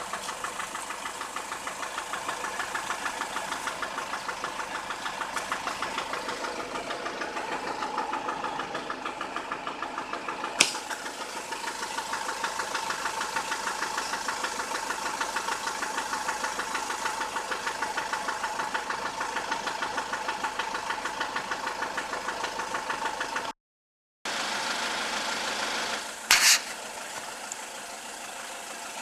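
SsangYong Kyron engine idling with an even, rhythmic knock from a faulty fuel injector. A sharp click sounds about ten seconds in; the recording breaks off briefly after about 23 seconds, and a short loud noise follows a couple of seconds later.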